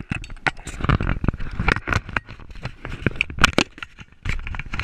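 Camera handling noise: a rapid, irregular jumble of knocks, clicks and rubbing as hands grip and move the camera right against its microphone.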